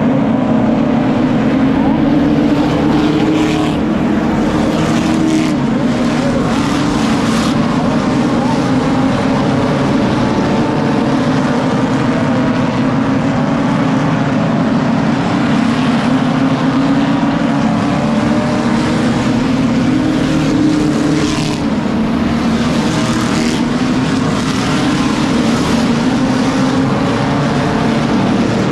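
A pack of stock cars racing on a short paved oval, many engines running together in a loud, steady drone whose pitch rises and falls as the cars lap through the turns and past the straight.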